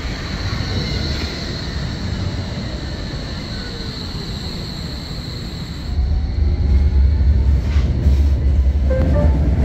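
A Berlin tram pulling into the stop and coming to a halt. About six seconds in, the sound changes to a louder, deeper rumble from inside the tram car.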